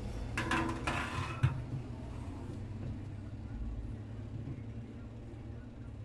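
A metal socket and extension clattering as they are handled over a washing machine agitator, with a sharp click about a second and a half in. A steady low rumble runs underneath.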